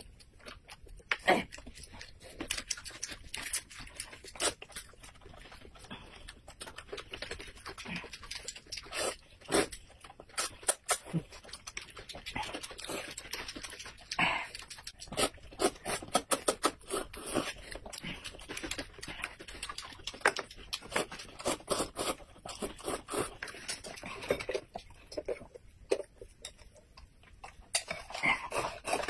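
Close-up eating sounds: noodles and broth being slurped and chewed, with many short wet smacks and clicks.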